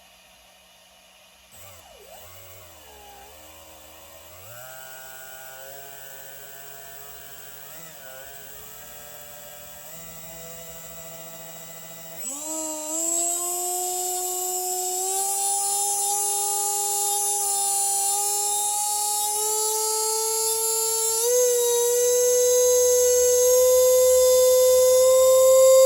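Arrma BLX 4074 2050kV brushless motor on a 6S LiPo whining as it spins up under throttle. It starts low and wavering, rises in a few steps, jumps sharply higher and louder about halfway through, then keeps climbing slowly in pitch and loudness.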